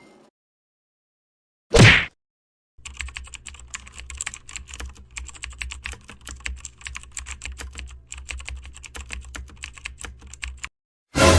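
Computer keyboard typing sound effect: rapid, irregular keystrokes for about eight seconds over a low steady hum, stopping shortly before the end. About two seconds in, before the typing starts, there is one short, loud burst of sound.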